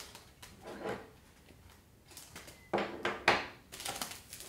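A small plastic packet of rainbow crystal flash rustling in the hands as strands are drawn out, in several short bursts.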